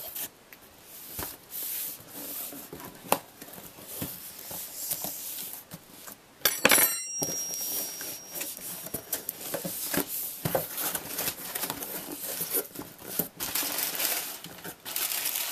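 A cardboard box being cut open with a butter knife and its packing torn apart: irregular scraping, ripping and crinkling, with clicks of handling. One louder, sharper rip comes about halfway through.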